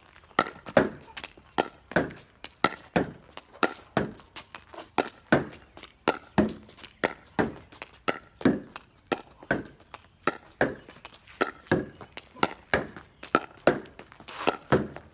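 A fast pickleball rally against a garage door: a paddle striking the plastic ball and the ball hitting the door, a steady run of sharp knocks at about two or three a second.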